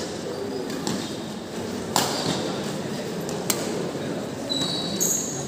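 Badminton rackets striking a shuttlecock during a rally: a faint hit, then two sharp cracks about a second and a half apart. A short high squeak follows near the end.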